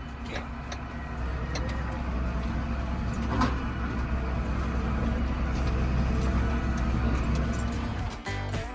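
Tractor engine running steadily as it drives off, getting gradually louder.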